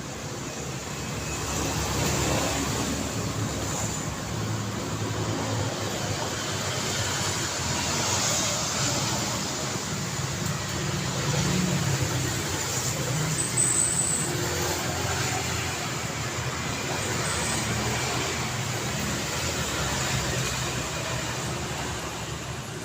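Road traffic on a city street: a continuous wash of car and vehicle noise, swelling several times as vehicles pass.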